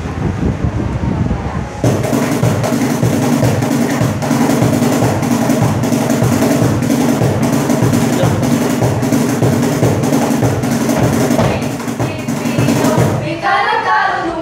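Cajón box drum played in a steady, quick beat that starts about two seconds in, over held low notes. A voice slides in pitch near the end.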